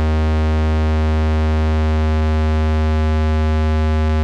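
Behringer 2600 Blue Marvin oscillator sounding a low, steady square-wave tone while its pulse width is nudged toward an exact 50% duty cycle. Faint extra upper harmonics come and go a few times as the pulse width drifts off 50%.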